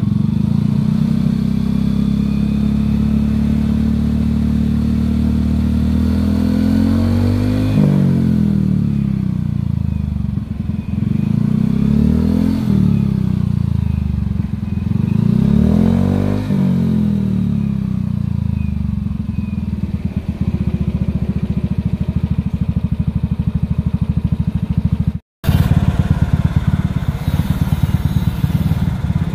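Yamaha Mio Soul GT 125 scooter's single-cylinder four-stroke engine idling through an F2Racing standard-racing aftermarket exhaust, revved up and let fall back about three times. After a short break near the end, another Yamaha Mio Soul idles through the same kind of exhaust.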